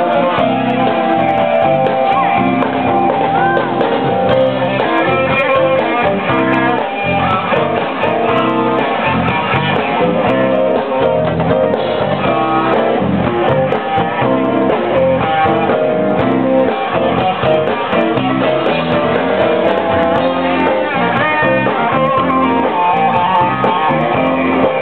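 Music played on guitar with other instruments at a steady, unbroken level.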